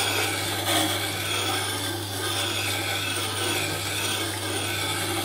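Sharpening grinder running with a steady motor hum while a roughing gouge is rotated against the wheel, giving a continuous rasping grind of steel. This is the bevel being ground, pass by pass, to a fresh edge.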